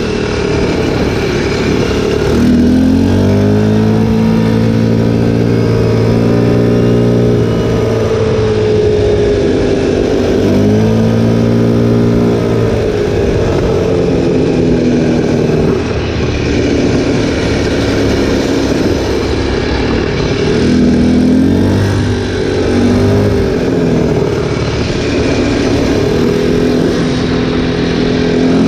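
An ATV's engine running under way. Its note climbs and drops several times as the rider speeds up and eases off, and holds steady in between.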